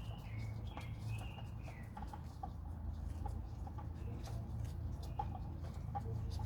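Engine oil dripping into a drain pan in scattered drops from the just-removed oil filter housing. A bird chirps a few short gliding notes in the first two seconds, over a steady low hum.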